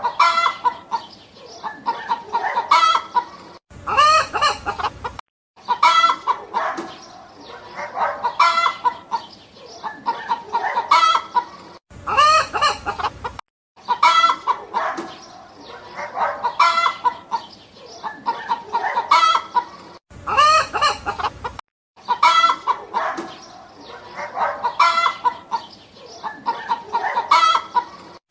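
Chickens clucking steadily, with a rooster crowing about every eight seconds; the same short stretch of clucking and crowing repeats over and over.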